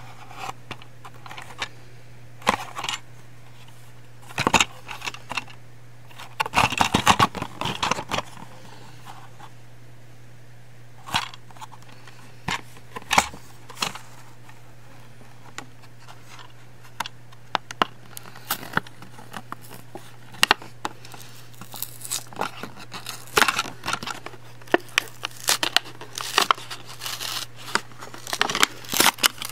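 Plastic blister pack of a toy train being handled and opened: irregular crinkles, clicks and tearing, busiest around seven seconds in and again through the last third, over a steady low hum.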